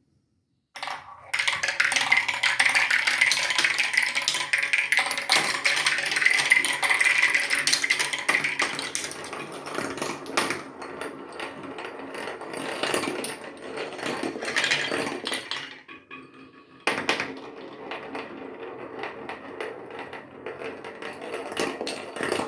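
Many marbles rolling and clattering down a homemade ladder-type marble track, a dense run of rapid clicks and rattles, with a steady whirring stretch as they circle a funnel cut from a plastic gallon water jug.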